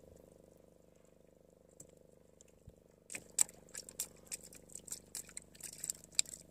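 Steady low hum of a fishing boat's engine, with a quick irregular run of sharp clicks and knocks starting about three seconds in.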